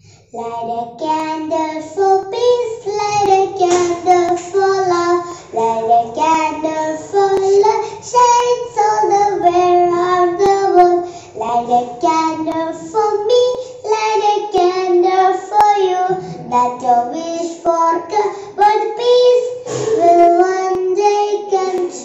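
A young girl singing an English recitation piece in a melodic, rhyme-like tune.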